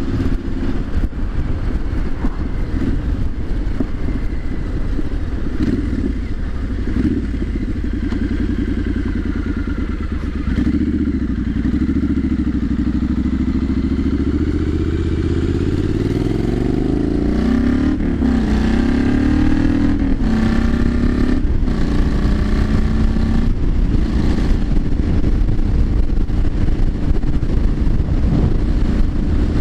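Triumph Street Scrambler 900's parallel-twin engine running on the road, its note rising and falling with the throttle. It climbs steadily in pitch as the bike accelerates a little past halfway.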